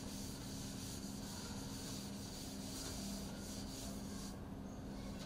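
A chalkboard duster rubbing across a chalkboard, wiping off chalk in a steady scrubbing, which thins out about four seconds in.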